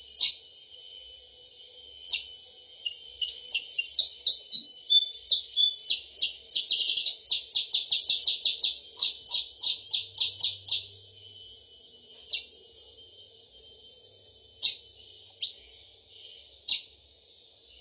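Bird-lure recording of sharp, high songbird chirps: scattered calls, then a fast run of about four or five chirps a second lasting a few seconds, then scattered calls again, over a steady high-pitched hiss.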